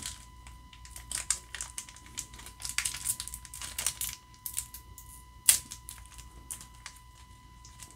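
Foil trading-card booster pack in its plastic sleeve crinkling and crackling as it is handled. The crackles are short and irregular, with a sharper one about five and a half seconds in.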